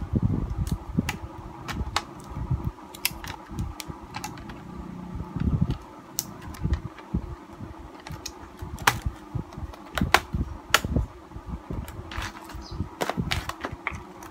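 Handling clicks and knocks of laptop hardware: a hard drive is set into its bay and the plastic bottom cover is pressed back on, giving scattered sharp plastic clicks and dull thumps. A steady fan hum sits under them.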